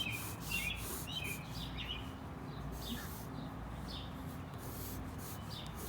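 Small birds chirping outdoors: short high chirps come in a quick cluster in the first second or so, then only now and then.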